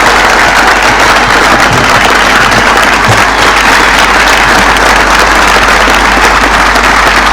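Large crowd applauding: a dense, steady clatter of clapping.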